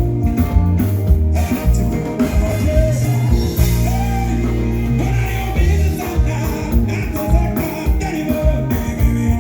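Music with a singer: a sung melody over heavy bass and a steady beat.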